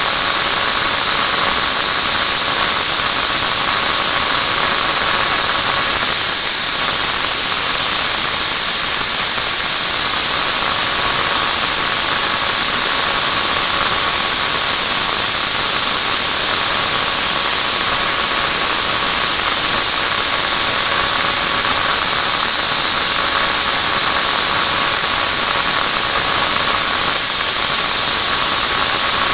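Electric angle grinder running continuously at constant speed, giving a loud, steady high-pitched whine over a hiss.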